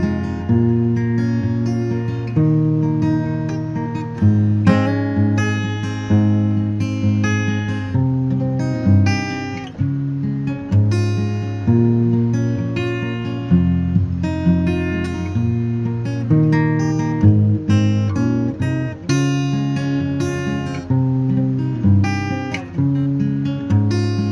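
Background music: strummed and plucked acoustic guitar playing steadily.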